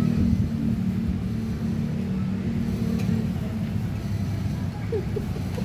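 Steady low rumble of an engine running, with pitched hum in its first couple of seconds, then rougher. A few short chirps sound about five seconds in.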